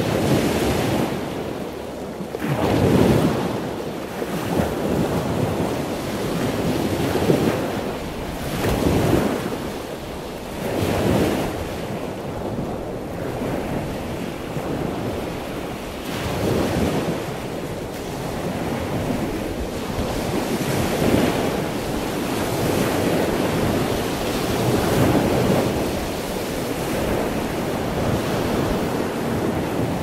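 Pacific Ocean surf breaking and washing over a rock outcrop: a continuous wash of water with louder surges every few seconds as each wave hits the rocks.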